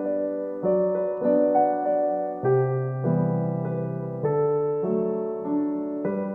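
Slow, gentle piano music: sustained chords changing about once a second, with a held low bass note near the middle.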